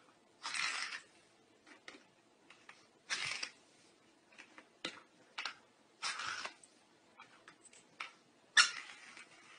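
Small plastic lids batted by a kitten across a smooth wooden floor: four short sliding scrapes with scattered light clicks, the loudest a sharp clack near the end.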